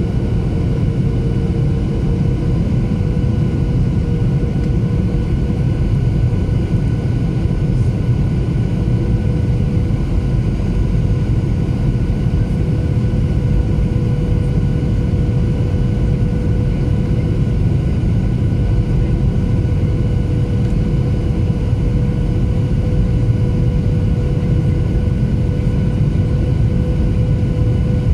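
Boeing 737-800's CFM56-7B turbofan engines and airflow heard from inside the cabin on approach to landing: a steady, loud, low rumble with several steady engine tones humming over it.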